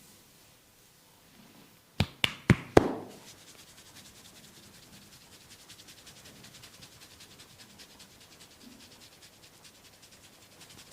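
Massage on the body: four sharp strikes about a quarter second apart, then a fast, even run of faint rubbing strokes.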